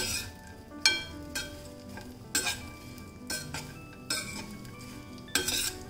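Spatula stirring dry fruits frying in ghee in a stainless steel pan: irregular sharp clinks and scrapes against the metal, about one a second and some ringing briefly, over a faint sizzle, with a quick flurry of strikes near the end.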